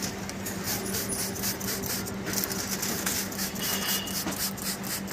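Plastic window-tint film rustling and crackling as it is handled against wet car window glass, with the hiss of a trigger spray bottle misting water onto it about four seconds in. A steady low hum runs underneath.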